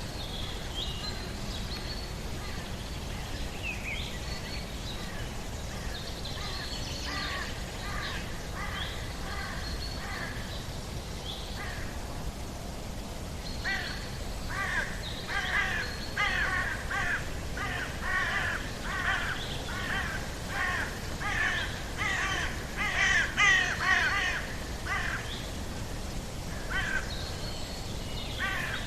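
Outdoor bird ambience: birds call in repeated series, sparse at first and then busier and louder from about halfway through. Thin high chirps come early on, over a steady low background noise.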